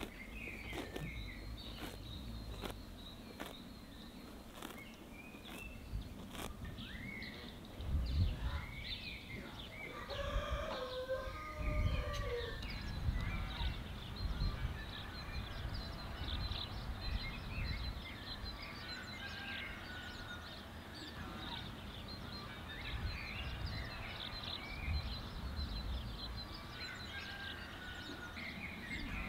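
Rural outdoor ambience: small birds chirping all through, and a rooster crowing once about ten seconds in. Low rumbles come and go underneath, loudest around eight and twelve seconds in.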